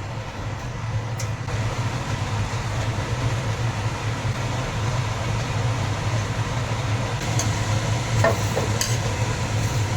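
Sugar frying in a wok over low heat to make caramel colour, sizzling steadily as a spatula stirs it, over a steady low hum.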